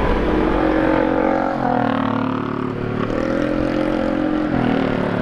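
Motorcycle engine running while riding in slow traffic, its note rising and falling with the throttle, over a low rumble of wind and road noise.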